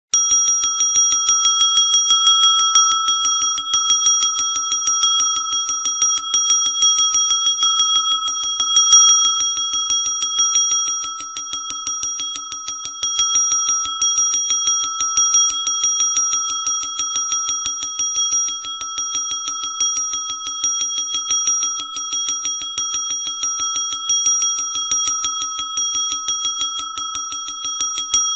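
Small brass bell rung rapidly and without a break, struck several times a second, so that its bright ringing tone holds steady. The strikes stop at the very end and the tone rings out.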